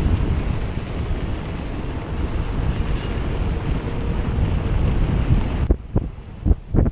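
Wind buffeting the microphone while riding an e-bike along a trail: a steady low rumble that drops away near the end, where a few sharp knocks follow.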